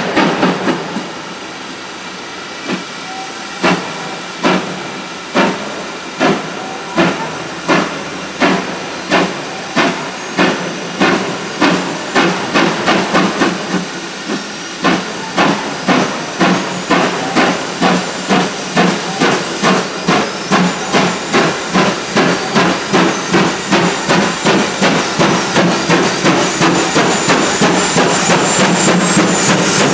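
Steam locomotive exhaust beats as it pulls away under steam, the chuffs quickening from about one a second to about two a second and growing louder, over a steady hiss of steam.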